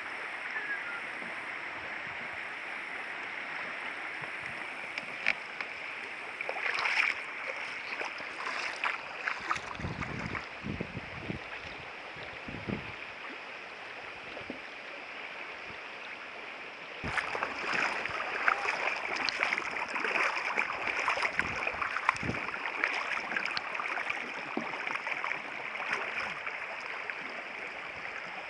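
River water flowing and splashing around a canoe, with scattered clicks and a few low thumps. About two-thirds of the way through it turns suddenly louder and busier.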